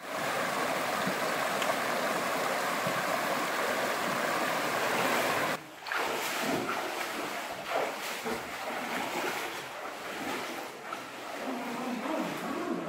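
Shallow river water running over rocks, with the splashing of people wading through it. There is a short break in the sound just before halfway.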